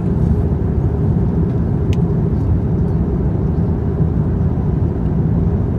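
Steady low rumble of an airliner cabin in cruise flight, the engines and rushing air making an even, unbroken noise. There is a faint click about two seconds in.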